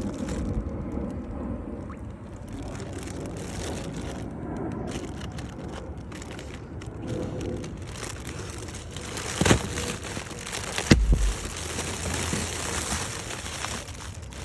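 Two balloons popping, sharp bangs about a second and a half apart, the second louder with a low thud after it. Rubber balloons being handled and rubbed between the pops.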